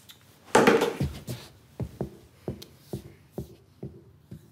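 A brief loud rush of noise about half a second in, then a run of soft, quick knocks, about three a second.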